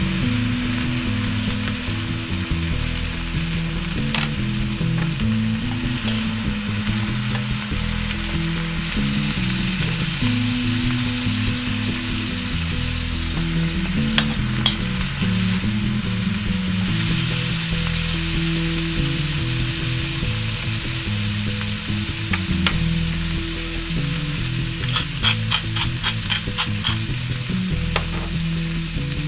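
Chive blossoms sizzling steadily in a frying pan as they caramelize, with a quick run of light clicks near the end, over background music with a stepping low bass line.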